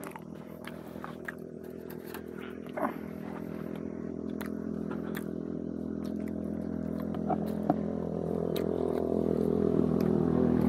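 A motor vehicle's engine running at a steady pitch, growing steadily louder. A few short animal calls come near the start.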